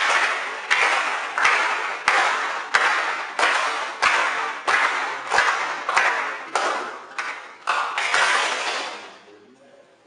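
A group applauding in unison: rhythmic clapping at about one and a half claps a second, each clap ringing in the room. It dies away near the end.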